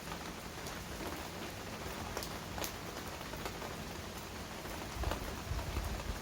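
Steady rain falling, with scattered individual drops ticking sharply on a hard surface. A low rumble swells up under the rain about five seconds in.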